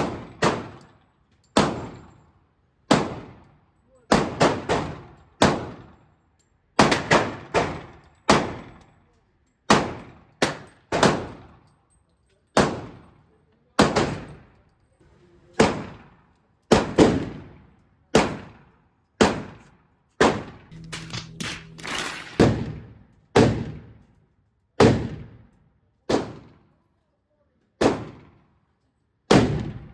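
Gunfire at a shooting range: a steady string of single shots a second or so apart, now and then two in quick succession, each sharp crack trailing off in a short echo.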